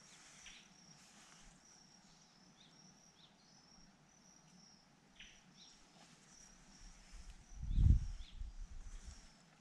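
Insects chirping in a faint, steady, pulsing high chorus, with a few short descending chirps. About eight seconds in there is a brief, louder low rumble.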